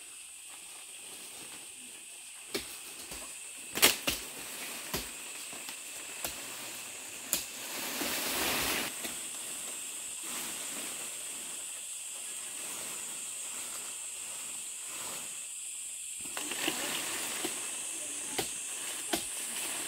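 Dry leaf litter and palm fronds rustling and snapping as someone moves through forest undergrowth. There are sharp cracks about four seconds in and a longer swish around eight seconds in, over a steady high hiss.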